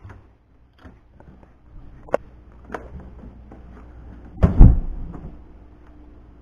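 Scattered clicks and knocks, then a loud double thump about four and a half seconds in, like a door being shut.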